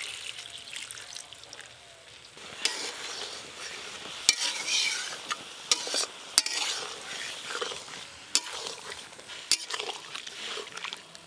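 A steel spatula stirring vegetables in milk in a metal kadai, scraping, with several sharp knocks of the spatula on the pan over a low sizzle.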